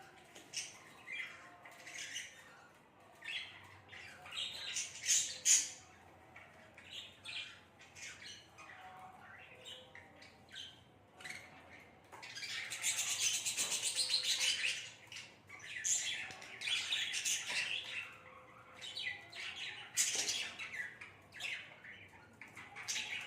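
Pet budgerigars chirping and squawking in short, scattered calls, with a few seconds of busier, unbroken chatter around the middle.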